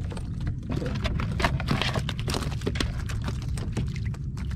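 Live tilapia flopping in the wooden boat's hull: irregular wet slaps and clicks against the planks and each other, over a steady low rumble.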